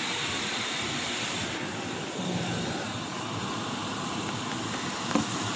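Kitchen range hood extractor fan running with a steady rushing noise, and a short light knock about five seconds in.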